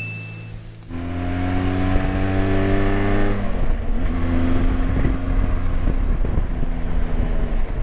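Motorcycle engine pulling under acceleration, its pitch climbing steadily, then dropping at a gear change about three and a half seconds in and running on steadily. Wind rushes on the microphone throughout.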